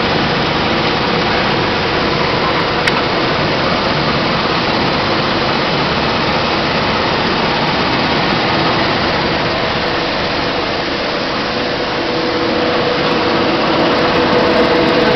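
Quinoa seed cleaning machine running: a loud, steady whirring noise with a steady hum through it, and a single click about three seconds in.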